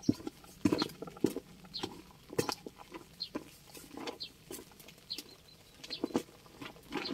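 Hands mixing and squeezing damp carp groundbait in a bucket: a run of irregular soft pats, squelches and scrapes, one or two a second.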